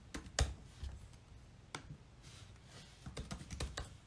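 Irregular light clicks and taps of typing, spaced out at first, then a quick run of them near the end.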